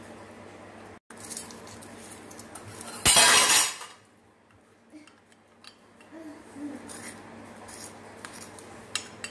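A plastic spoon scraping and clinking against glass bowls as hot tempering is scraped from one glass bowl into dal, with scattered small clicks and knocks. About three seconds in there is one loud, short burst of noise lasting under a second, over a low steady hum.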